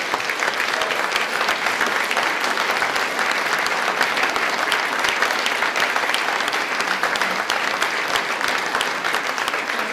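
An audience applauding: many hands clapping in a dense, steady stream throughout.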